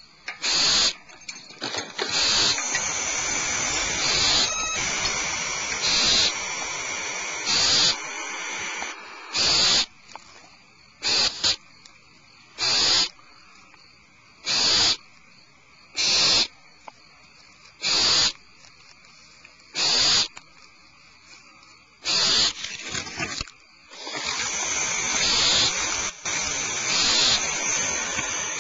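Barn owls hissing: long rasping hisses at the start and near the end, with short single hisses about every two seconds between them.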